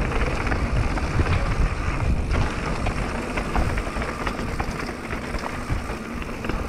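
Mountain bike running fast down a loose gravel trail: tyres rolling and crunching over gravel, with many short rattles and clicks from stones and the bike. Wind buffets the microphone with a steady low rumble.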